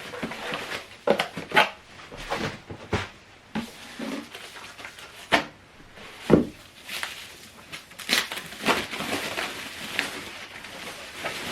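Unboxing handling sounds: packaging rustling and crinkling, with a run of irregular knocks and thumps as the plastic-bodied soundbar and its packing are moved and set down, the loudest thump a little past the middle.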